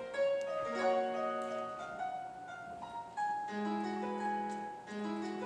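Piano playing an instrumental passage: sustained chords under a moving melody, with a deeper bass note coming in about three and a half seconds in.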